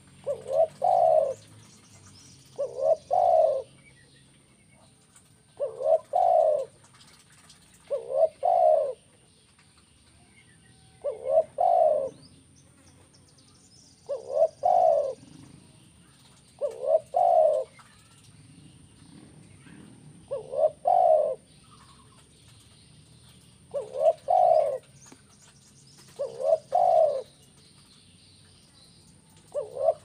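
Spotted dove cooing: a three-note coo, two short notes running into a longer one, repeated about every three seconds.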